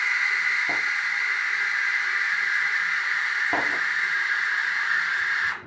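Sage (Breville) Oracle Touch steam wand automatically texturizing milk in a stainless steel jug: a steady loud hiss, with two low thumps along the way. The hiss cuts off suddenly near the end, as the auto milk function stops at its set temperature of 65 °C.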